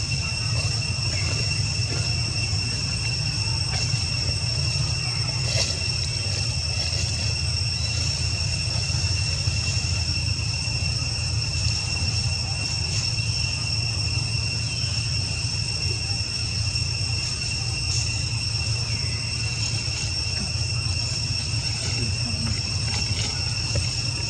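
Steady, unbroken high-pitched insect drone, with a low steady rumble underneath.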